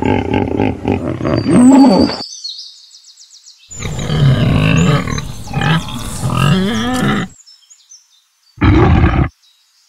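Pig grunting in two long bouts, with light bird chirps in the background between them. A short loud sound follows near the end.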